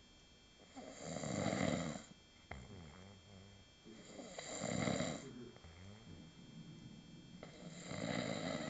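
Snoring: three long, loud snores about three seconds apart, with softer breathing sounds between them.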